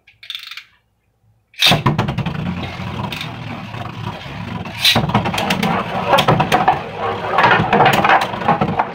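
Two Beyblade Burst tops, one of them a Drago Fafnir, launched into a plastic stadium about a second and a half in with a sudden loud clatter. They then spin and scrape against the plastic in a continuous whirring rattle, broken by sharp clicks as they collide several times.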